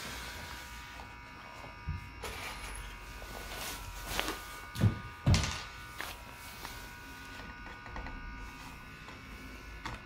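Wooden stretcher pieces and a cordless drill being handled on a wooden floor: a few knocks, the two loudest close together about five seconds in, over a steady faint electrical buzz.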